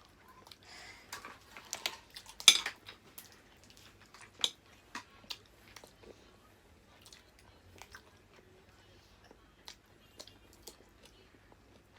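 Close-up eating sounds: chewing and biting, with scattered clicks and clinks of cutlery and dishes. The loudest click comes about two and a half seconds in.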